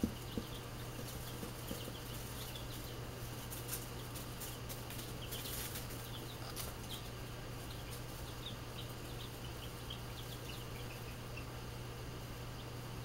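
Baby chicks peeping, many short high chirps scattered through the middle of the stretch, with brief rustles of wood-shaving bedding as they move about. A steady low hum lies underneath.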